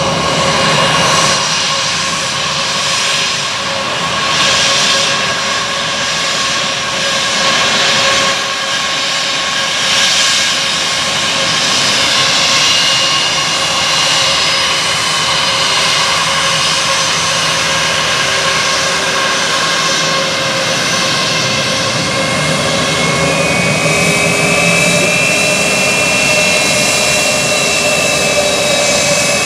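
Airbus A321's twin jet engines running at taxi power: a steady jet whine with a higher whistling tone that comes in about three quarters of the way through.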